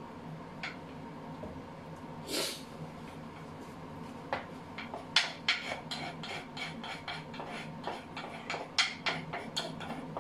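A metal spoon scraping and clicking against the inside of a terracotta bowl as the last of a garlic and parsley paste is scooped out, with a brief swish about two seconds in. The clicks are irregular and come thicker toward the end.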